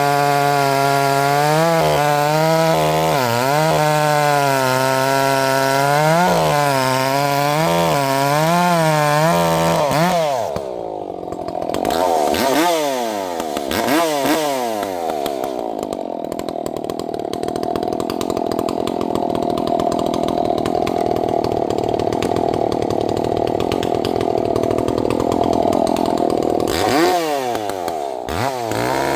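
Two-stroke gas chainsaw cutting through hardwood rounds, its engine pitch wavering as the chain loads and unloads in the wood. About ten seconds in, the revs drop and swoop up and down a few times, then it runs a duller, steadier stretch before more rev swoops near the end.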